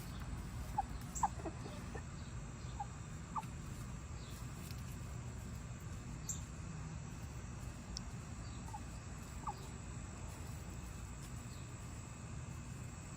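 Backyard chickens clucking: a handful of short, scattered calls over a steady low background noise.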